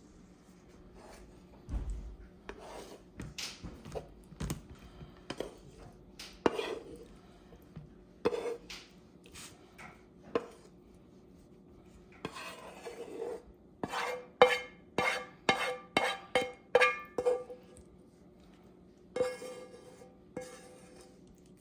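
Dishes and cutlery clattering and clinking on a kitchen counter, irregular knocks with a quick run of ringing clinks, two or three a second, in the middle.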